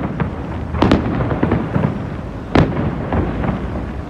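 Aerial fireworks shells bursting overhead: a run of sharp bangs and crackles, the loudest about a second in and again past halfway, over a steady low rumble.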